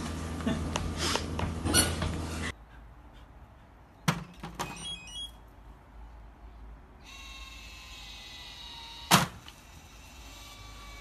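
A cat scrambling on a wooden wardrobe shelf, with a few knocks and scrapes. After a cut, an automatic dog-ball launcher fires with one sharp, loud thunk about nine seconds in.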